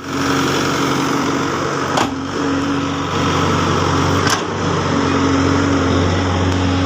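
Case backhoe loader's diesel engine running steadily, with two sharp knocks, about two seconds in and again a little past four seconds.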